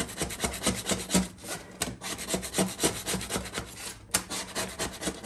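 A razor blade scraping old friction material off a steel automatic-transmission clutch plate, in quick repeated strokes as the lining chips away down to bare metal.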